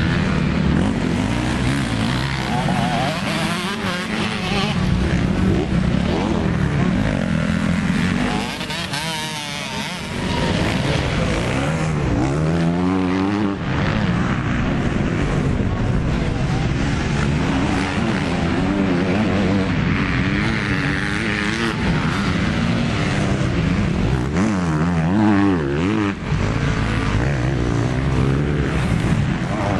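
Motocross dirt bike engines revving hard and easing off as the bikes ride a dirt track, their pitch rising and falling over and over through the gear changes.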